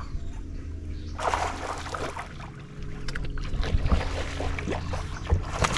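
A hooked small barramundi splashing at the surface beside an aluminium boat as it is reeled in, in irregular bursts starting about a second in, over a steady low motor hum.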